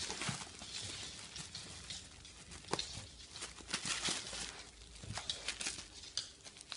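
A puppy scrabbling about on plastic sheeting: irregular crinkling and crackling of the plastic under its paws.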